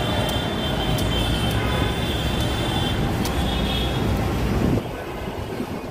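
Busy road traffic with a high horn-like tone sounding for the first two seconds and again briefly later, and a few short sharp knocks of a machete cutting into palmyra palm fruit. The noise drops suddenly near the end.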